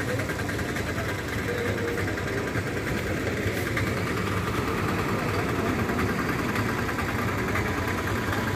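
Bus engines idling: a steady low rumble with no single sound standing out.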